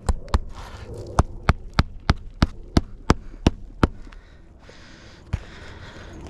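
Hammer driving a roofing nail through a shingle. Two light taps come first, then a run of about nine sharp blows, roughly three a second, then a single blow near the end.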